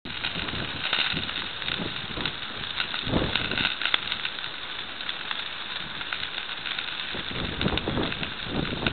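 Chicken wings and vegetables sizzling in foil pans over a charcoal grill: a steady hiss with scattered crackles and pops. Low rumbles come about three seconds in and again near the end.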